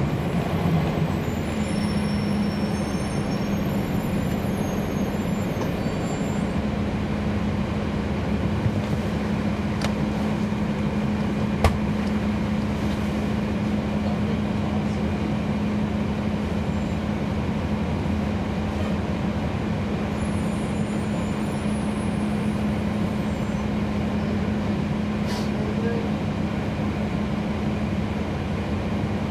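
Inside a NABI 40-foot transit bus with a Cummins ISL9 diesel engine, heard from the passenger cabin as the bus runs steadily, with an even hum held at one pitch throughout. A single sharp click about twelve seconds in.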